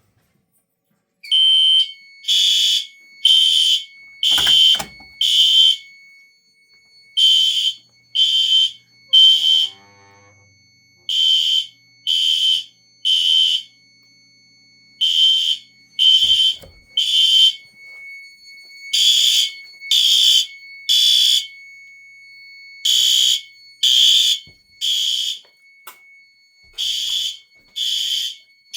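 System Sensor horn strobes (SpectrAlert Advance and L-Series models) sounding together in sync after starting about a second in. They give the temporal-three evacuation pattern: three short horn blasts, a pause, then three more, about every four seconds. A fainter steady high tone runs underneath.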